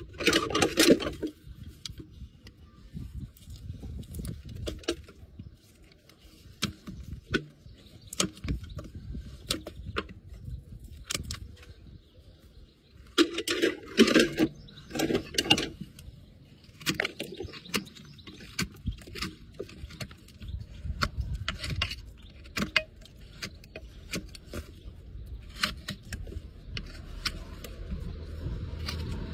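Hoof knife paring the sole and frog of a horse's hoof: short crisp scrapes and clicks as slivers of horn are cut away. The cutting comes in louder runs about a second in and again around the middle.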